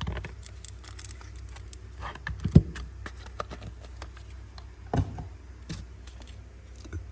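Small clicks and knocks from a Zippo lighter and its gift box being handled, with a sharper knock about two and a half seconds in and another near five seconds, over a steady low hum.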